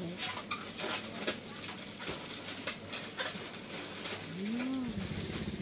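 A person eating a piece of fruit: scattered small wet clicks and smacks of the mouth chewing. Near the end, one short closed-mouth "hmm" that rises and falls as she tastes it.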